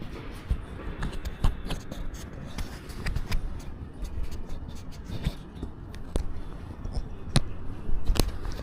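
Irregular sharp clicks and scrapes over a low rumble.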